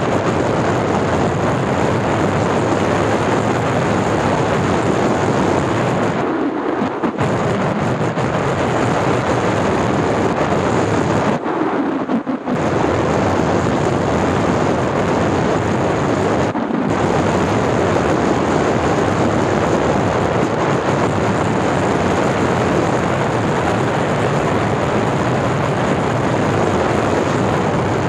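Loud, steady rush of wind over the microphone of a skier going fast downhill in a tuck. It dips out briefly three times, about six, twelve and seventeen seconds in.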